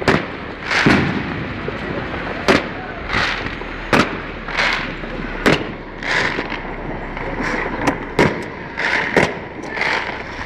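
Fireworks and firecrackers going off in a steady run of sharp bangs and crackling bursts, about one or two a second.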